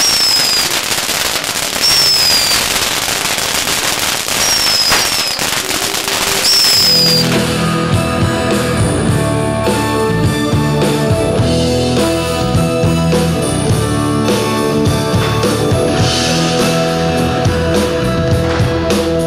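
Fireworks and ground fountains crackling, with four short falling whistles, for about the first seven seconds. Then a live band with electronic keyboard and electric bass guitar plays the instrumental intro of a pop song.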